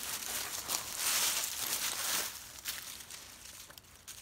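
Rustling and crinkling with a few small clicks, dying away after about two seconds.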